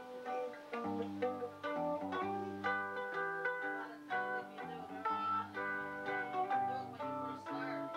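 Mandolin and guitar playing a bluegrass tune together: quick plucked melody notes over a walking run of guitar bass notes.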